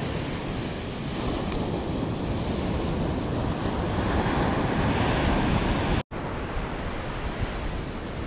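Ocean surf breaking on a beach, with wind buffeting the microphone. The sound cuts out completely for a moment about six seconds in.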